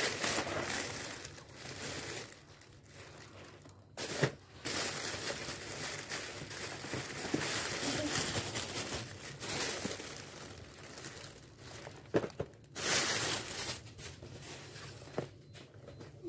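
Thin plastic shopping bag rustling and crinkling in irregular bursts as hands rummage in it and pull out cardboard snack boxes.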